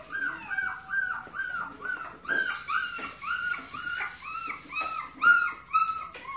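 Four-week-old puppy barking in a steady run of short, high-pitched yips, about three a second.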